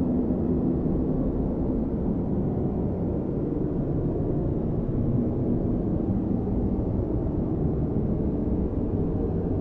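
Strong blizzard wind blowing steadily, a deep, even noise without gusts or breaks.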